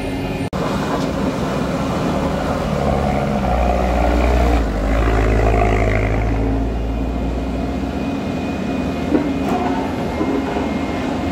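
Heavy diesel truck engine labouring under load on a steep climb, its pitch rising a few seconds in and loudest around the middle before settling to a steadier drone.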